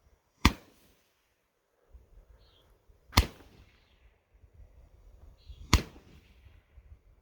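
Roman candle firing three shots with a sharp pop each, about two and a half seconds apart, with a faint hiss of the burning tube between shots.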